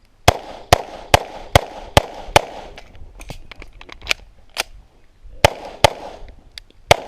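Pistol fired in rapid succession during an IDPA course of fire: a quick string of six shots about 0.4 s apart, then a few quieter cracks, then more shots in pairs near the end.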